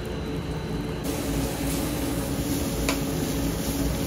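Food sizzling in a wok on a high gas flame, a steady hiss that grows fuller about a second in, over a steady drone of kitchen machinery. A single short clink of the spatula against the pan near the three-second mark.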